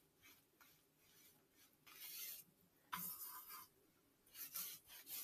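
Watercolor paintbrush stroking wet paint across paper: faint brushing, three short strokes in the second half.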